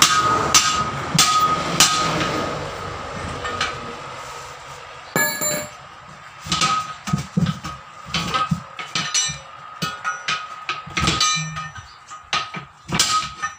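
Steel tyre lever striking and prying against the steel rim of a truck wheel while a tyre is being fitted. Sharp metal clanks with a ringing tone come in a quick run about every half second at first, then go on irregularly.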